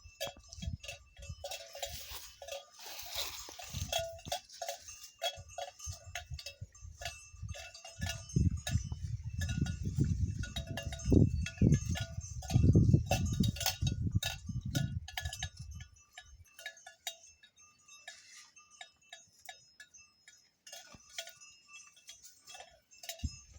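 Metal livestock bells clanking irregularly as animals move, several bells ringing at different pitches. A louder low rumble runs through the middle of the stretch.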